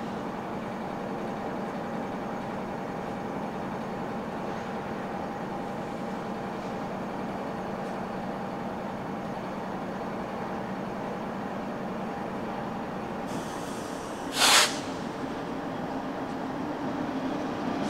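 Freight train's diesel locomotive running steadily with a low hum, growing louder near the end as it draws closer. A single short, sharp hiss cuts in about three-quarters of the way through.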